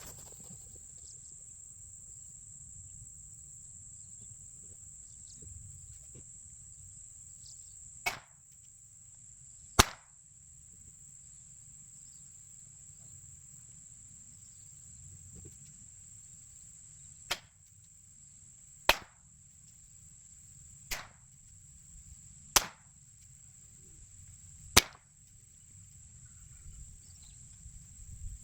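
Seven sharp shots from a Rossi Rio Bravo .22 LR lever-action rifle, fired singly and a second and a half to several seconds apart, over a steady high insect trill.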